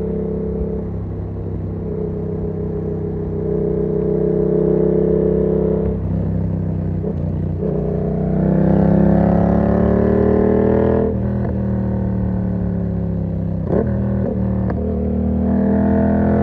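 A 2019 Yamaha MT-07's parallel-twin engine running through an SC-Project exhaust with the dB-killer fitted. It pulls up through the revs, drops sharply at a gear change, then holds a lower note before climbing again near the end. Two brief sharp clicks come between.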